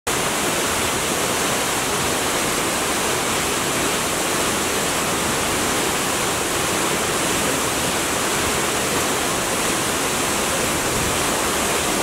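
A tall waterfall falling down a rock cliff into a pool: a steady, unbroken rush of falling water.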